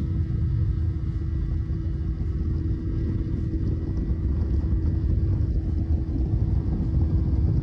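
Boat under way at speed: the steady low rumble of its outboard motor running, mixed with wind and water rushing past, with a thin steady tone running through it.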